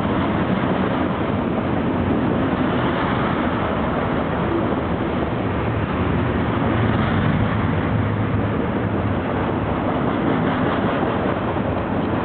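Freight train of loaded trash cars rolling past close by, a steady noise of steel wheels running on the rails.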